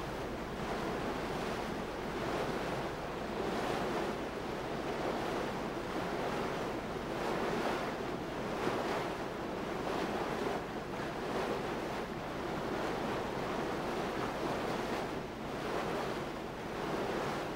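Sea waves washing with wind, a steady rushing that swells and ebbs every couple of seconds.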